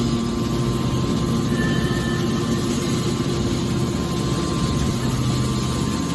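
Hydraulic scrap-metal baler for tin cans running, its pump motor giving a steady low hum under a rougher mechanical noise.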